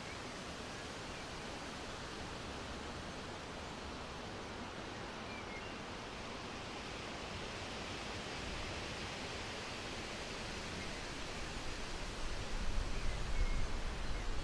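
Steady rushing of wind through trees, with gusts buffeting the microphone as a low, uneven rumble toward the end.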